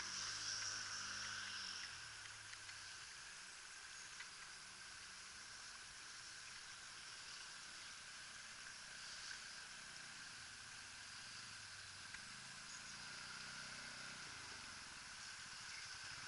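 Quad bike engines: one dies away over the first couple of seconds, leaving a faint steady hiss, and from about twelve seconds in another quad's engine grows louder as it approaches.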